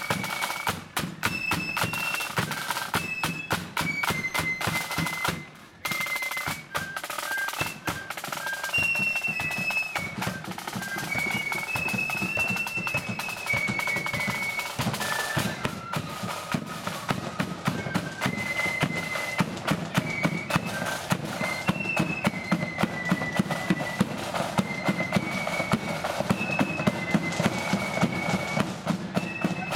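Marching flute band playing: a high flute melody over rapid snare drum strokes and bass drum, with a brief drop about six seconds in.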